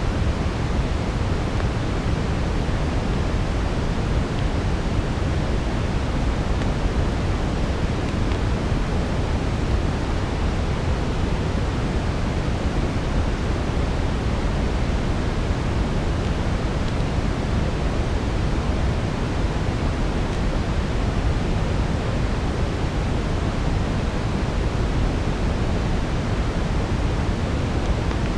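Steady brown noise: an even, deep rushing hiss weighted toward the low end, with no distinct crackles standing out.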